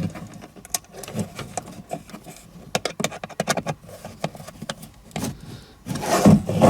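Irregular light clicks, taps and rattles of small hand tools and wire connectors being handled while wiring a boost controller, with a quick run of clicks about three seconds in.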